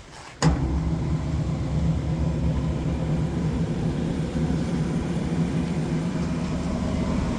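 Doall 2013V variable-speed vertical bandsaw switched on with a click about half a second in, then its 2 HP three-phase Baldor motor and drive running with a steady hum in low gear at the bottom speed, about 60 feet per minute blade speed.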